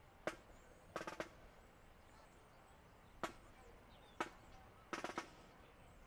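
Scattered sharp drum strokes from marching band drums warming up: single hits here and there and two short groups of three or four quick strokes, about a second in and again about five seconds in.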